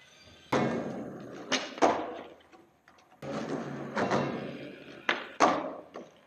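Skateboard on a concrete floor: the urethane wheels roll, and the board clacks sharply against the ground in two quick pairs, about a second and a half in and again about five seconds in. The sound echoes off the bare concrete.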